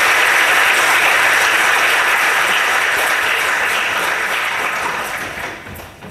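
Lecture-theatre audience applauding, steady and sustained, then dying away over the last second or so.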